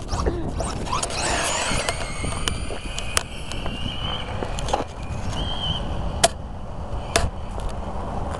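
A fast electric RC car's motor whining as it is driven hard up the road, its pitch rising and falling, over a steady low rumble of road and wind noise, with a few sharp clicks.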